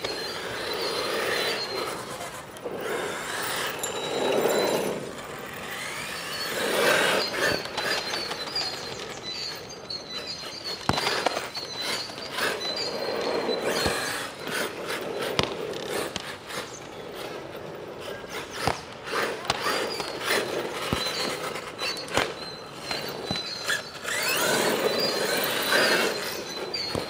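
HPI Savage Flux RC monster truck driving in repeated bursts, its brushless motor whining as it speeds up and slows, with tyres rushing over the ground in swells every few seconds and scattered sharp knocks.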